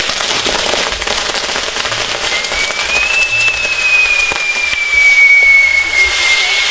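Fireworks tower (castillo) burning: dense crackling and sizzling of fountains and firecrackers. About a third of the way in, a long high whistle joins, rising briefly and then slowly falling.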